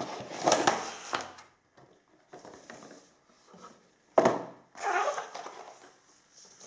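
Cardboard packaging of a computer mouse being handled: the box opened and its inner cardboard tray taken out and set down. Rustling and scraping come in short bursts, with a sharp knock about four seconds in.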